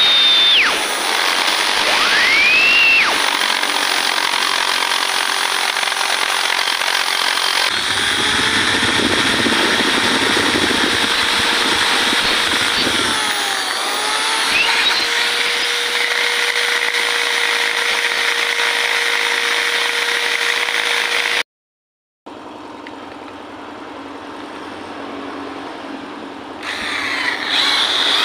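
Electric drill with a rotary burr grinding down an aluminium weld on a motorcycle crankcase, tidying the filled oil drain bolt hole. The motor whine winds down just after the start, spins up again about two seconds in and near the end, over a steady rasping of the bit on the metal, with a brief dead gap about two-thirds through.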